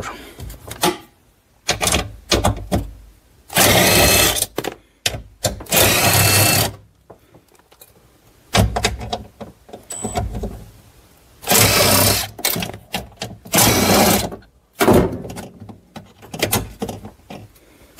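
A power tool with an 8 mm socket running in about five short bursts of a second or so each, backing out the bolts that hold a car audio amplifier to the body panel, with clicks and knocks of the tool and bolts between the bursts.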